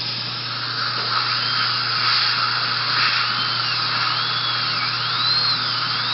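High-speed dental drill (handpiece) cutting a broken tooth, over a steady hiss. From about a second and a half in, its whine dips and climbs back again and again as the bur bears on the tooth and is eased off.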